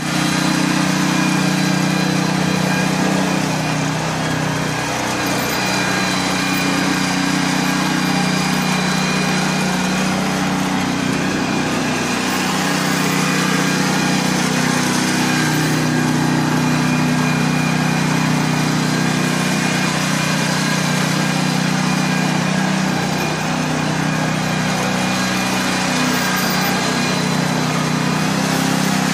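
Small engine of a self-propelled hazelnut harvester running steadily as the machine drives and turns under hydraulic steering, its pitch shifting slightly now and then.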